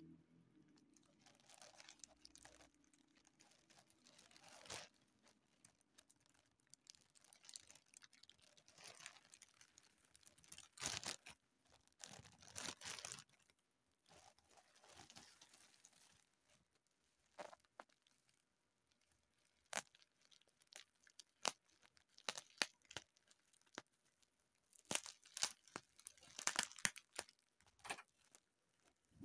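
Faint handling noises: crinkling and tearing in scattered bursts, with many sharp clicks and taps that grow busier near the end.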